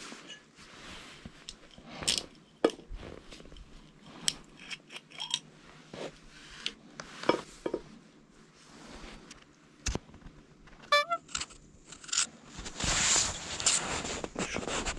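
Handling noises of a glass sake bottle: scattered light knocks, scrapes and cloth rustling as its wrapping is pulled off, with a quick run of clicks about eleven seconds in and a longer rustle near the end.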